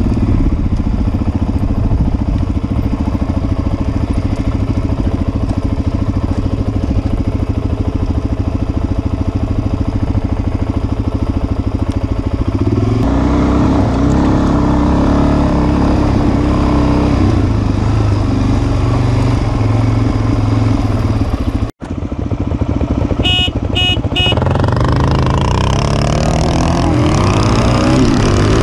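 Dirt bike engine running steadily under way from the rider's own bike. The sound drops out for an instant about three-quarters through. Near the end the engine pitch rises again and again as the bike accelerates through the gears.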